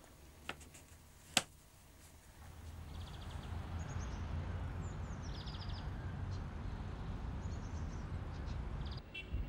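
Outdoor ambience with birds chirping: short repeated chirps and a few descending calls over a steady rushing background. It fades in after about two seconds of near silence.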